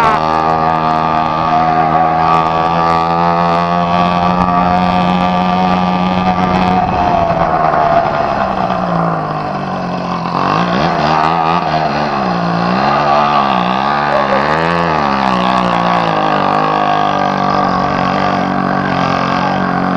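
Motorized bicycle's 80cc two-stroke engine kit running under way through a bare-pipe exhaust. It holds a steady high pitch, drops off about seven seconds in, then revs up and down several times before settling steady again.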